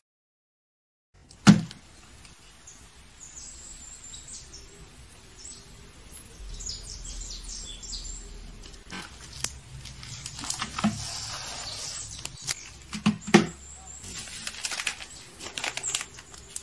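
Hands handling plastic-wrapped stationery and fabric: crinkling and rustling with scattered taps and clicks, a sharp click about a second and a half in.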